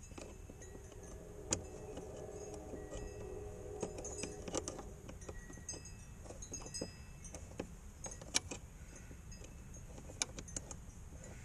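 Light, irregular metallic clicks and clinks of a nut driver and a hose clamp being handled, with a couple of sharper ticks.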